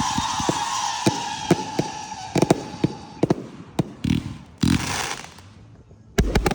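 Fireworks display: a whistling tone slowly falls and fades over the first couple of seconds amid rapid crackling pops, then several booms follow, and a loud bang comes near the end.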